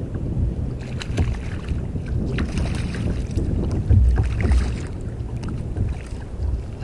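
Wind rumbling on the microphone, with water sloshing against a kayak's hull and a few light knocks. The water swells twice, about halfway through and again near the two-thirds mark.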